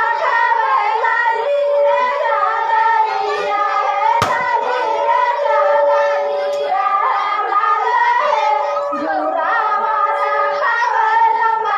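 Group of women singing a Karma folk song together, several voices overlapping with long held notes. One sharp knock about four seconds in.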